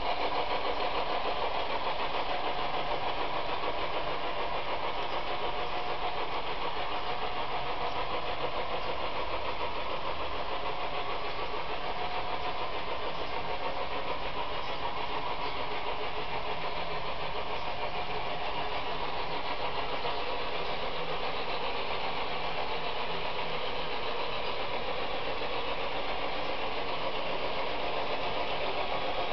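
Model train running: the speakers of two Bowser Alco diesel locomotive models play a steady diesel engine sound. It is mixed with the rolling noise of a long string of model carriages and wagons on the track.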